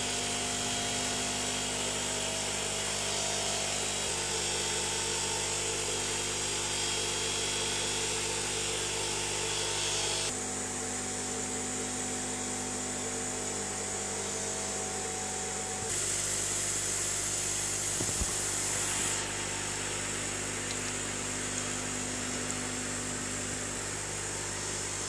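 Steady electric hum and hiss of fish-room aquarium equipment, with air pumps and filters running. The hum's pitch and mix change abruptly a few times.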